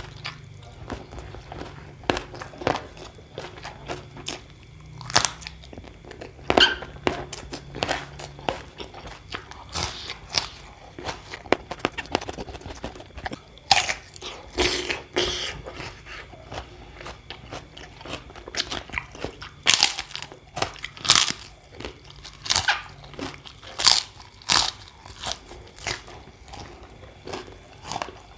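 Close-up crunching and chewing of crisp food. Sharp bites and crunches come irregularly throughout and are thickest in the second half.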